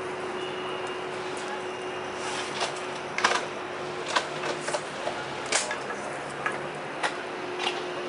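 Wooden spoon knocking and scraping against a metal frying pan as pasta is lifted out, a scattering of sharp irregular clacks from about two seconds in, over a steady background hiss and a thin constant hum.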